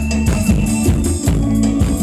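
Luk thung band music played loud over the PA, with a steady drum-kit beat and a heavy bass line.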